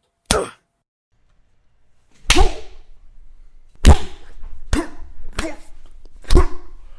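Fight sound effects of punches and slaps: one sharp hit, then after a pause of nearly two seconds five more hits in quick succession, each with a low thud and a short tail.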